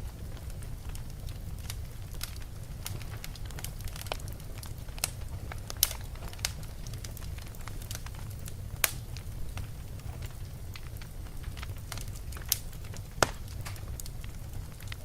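Wood fire burning in a fireplace, crackling with irregular sharp pops over a steady low rumble of the flames. A few pops stand out louder, about six, nine and thirteen seconds in.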